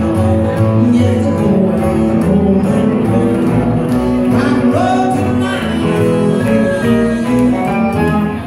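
Live rockabilly band playing, with strummed acoustic guitar, electric guitar and upright bass.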